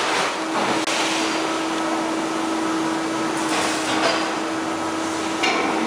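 Finn-Power F5-25 SB CNC punching machine running: a steady mechanical hum with one constant low tone and a few brief swells of louder noise.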